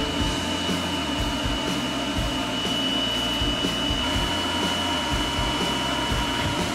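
Pet grooming stand dryer blowing steadily, a constant rush of air with a steady high whine.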